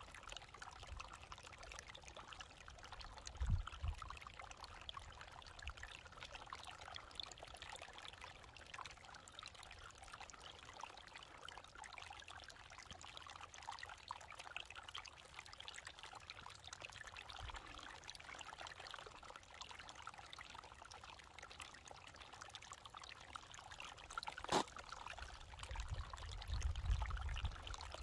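Faint, steady trickling of water running under and over a sheet of ice. A sharp click comes about three-quarters of the way through, with brief low rumbles a few seconds in and again near the end.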